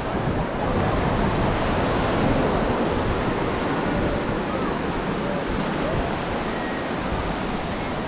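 Ocean surf washing steadily onto the beach, with wind buffeting the microphone. Faint voices come through now and then.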